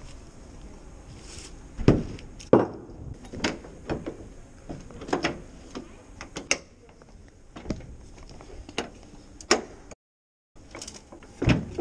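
Steel dropside boards and latches on a flatbed truck bed being worked by hand: a series of metal clanks and knocks, the loudest two about two seconds in.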